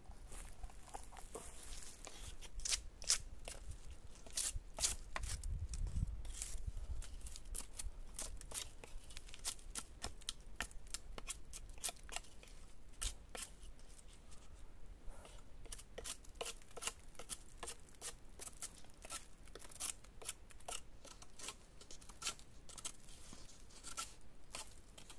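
Knife whittling a wooden pole: many short, sharp scraping strokes as wood is shaved off, coming irregularly a few times a second.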